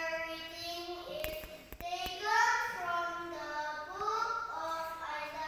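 A single high voice singing a slow melody in long held notes, with a few sharp clicks about a second and a half in.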